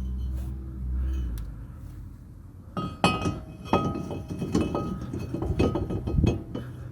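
Metal clinking and ringing taps, about a dozen over the last four seconds, from a new vented brake rotor being handled and set in place.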